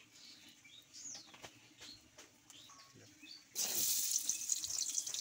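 Cooking oil trickles into an aluminium pan. About three and a half seconds in, chopped onions drop into the hot oil and start sizzling loudly, with faint bird chirps before that.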